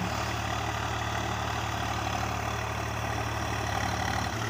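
Wheat thresher running steadily during threshing: a continuous machine drone with a low, even hum.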